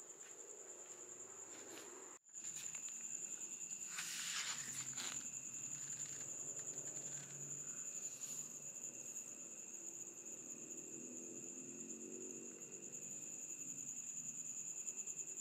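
Crickets chirping: a continuous high, rapidly pulsing trill. A short rustle about four seconds in is the loudest moment, with faint low sounds later on.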